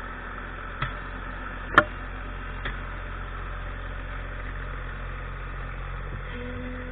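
Tractor engine running steadily, with three sharp knocks about a second apart, the middle one the loudest; near the end a new steady tone joins the engine hum.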